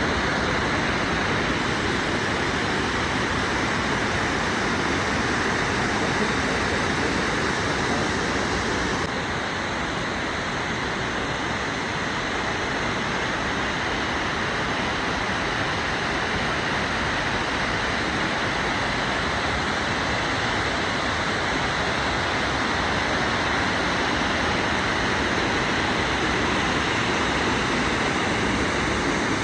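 Steady rushing roar of the Lechfall waterfall, with water pouring over the weir. About nine seconds in it becomes slightly quieter and less hissy.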